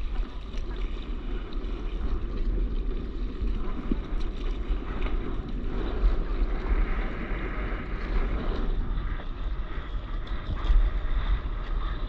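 Wind buffeting the microphone over sea water lapping and washing against a board, with a louder rush of water around the middle.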